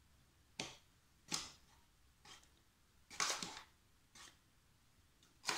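Metal spoon clinking against a mesh sieve and scraping up flour as spoonfuls of flour are tipped into the sieve: a few sharp taps spread out, with a longer scrape about three seconds in.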